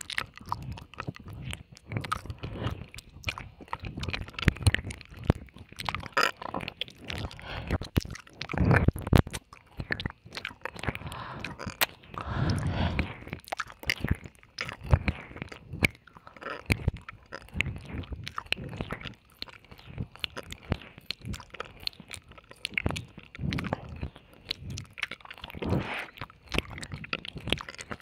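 Close-miked wet mouth sounds of ASMR ear licking: irregular tongue clicks, licks and kissing smacks, with a couple of longer wet, smacking stretches about a third and halfway through.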